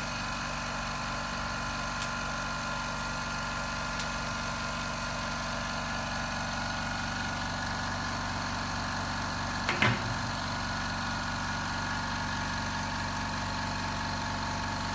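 A small air compressor running steadily with a constant hum, filling the autoclave chamber with air as its pressure rises toward the 0.4 MPa setting. A brief thump about ten seconds in.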